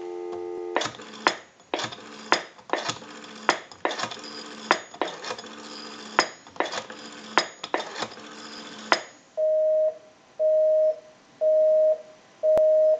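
Dial tone on the telephone line, broken off under a second in by the clicks of the brass elephant telephone's rotary dial as a number is dialled. About nine seconds in, a busy signal starts: a two-tone beep pulsing on and off about once a second, heard over the line amplifier.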